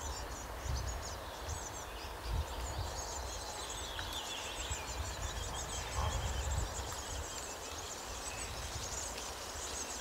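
Nestling birds calling from the nest: many short, high-pitched chirps in dense runs, with a lower run of calls about three to four seconds in. An uneven low rumble comes and goes underneath.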